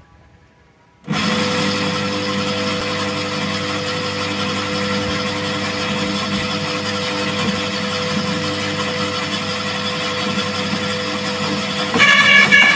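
Makita UD2500 electric garden shredder switched on about a second in, its motor running steadily as leafy branches are fed into the hopper. The sound gets louder and higher just before the end.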